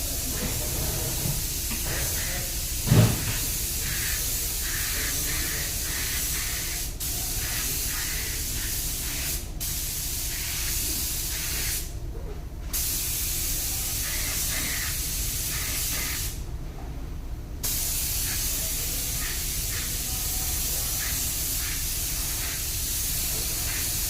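Spray gun hissing as it sprays paint onto a car panel, with the trigger released briefly about twelve seconds in and again for about a second near seventeen seconds. A single thump about three seconds in.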